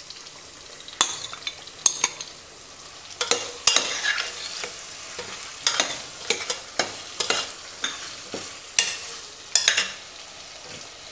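Raw prawns sizzling in hot masala in a stainless steel pot, with a steel spoon scraping and clinking against the pot in irregular bursts as they are stirred in.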